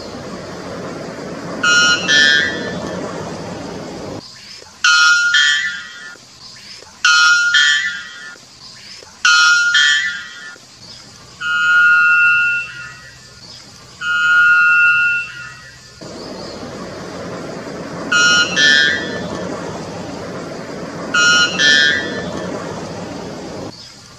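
White bellbird giving eight loud, pitched calls with gaps between them: some quick two-note calls, some single short notes, and two held for over a second. A steady hiss sits behind the calls at the start and again near the end.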